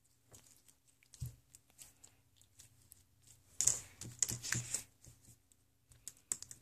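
Homemade jiggly slime being squeezed and pressed flat against a cutting mat, giving small wet crackles and clicks, with a busier burst about three and a half seconds in.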